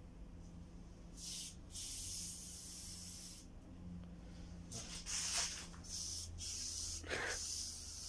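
Aerosol spray-paint can spraying in a series of short and longer hissing bursts, starting about a second in.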